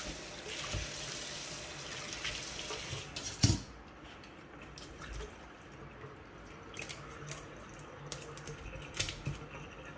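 Kitchen tap running into a stainless steel sink as hands rinse a fish, the water stopping about three seconds in. A sharp knock follows, then a few faint clicks and snips of kitchen scissors cutting the fish.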